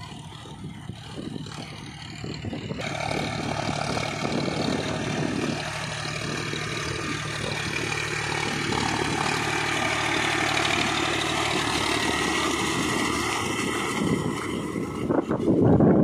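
John Deere 5050 D tractor's three-cylinder diesel engine running steadily as the tractor works through a flooded rice paddy on cage wheels, growing louder as it comes closer, loudest near the end.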